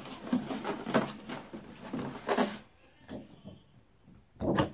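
Clear plastic packaging and tape crinkling and rustling as they are pulled off, for about two and a half seconds. A short knock comes near the end.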